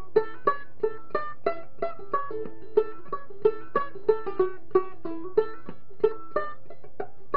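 Tenor gourd banjo ukulele played clawhammer style in the key of A: an old-time melody of sharply struck, briefly ringing notes at an even pace of about three strokes a second.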